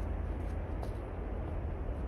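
Wind buffeting the phone microphone as a steady low rumble, with a few faint footsteps on the sandy forest path.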